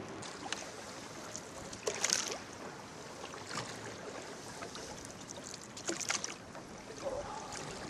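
Wooden oars of a small rowboat dipping and pulling through calm water, a few short splashes over a steady watery wash.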